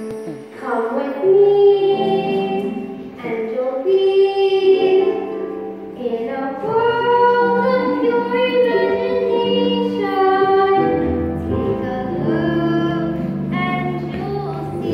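A young girl singing a solo song with instrumental accompaniment, holding each note for about a second.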